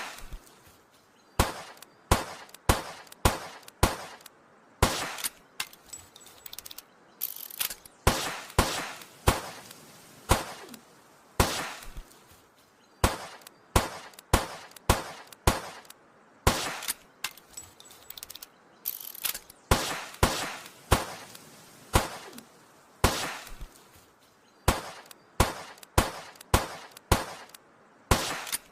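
Old revolver sound effects: dozens of sharp, short shots or hammer clicks, irregularly spaced, some coming in quick pairs.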